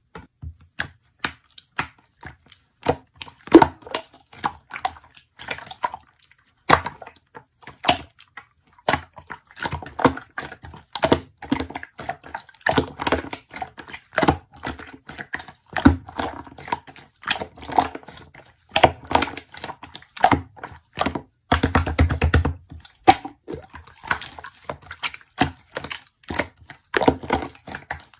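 Irregular, quick clicks and taps in a small room. There is a brief burst of fast rattling clicks about three-quarters of the way through.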